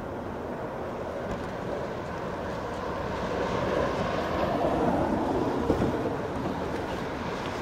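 Streamlined recumbent bikes and trikes rolling on a paved track, a steady rushing rumble of tyres and fairings that swells about halfway through as the pack comes nearer.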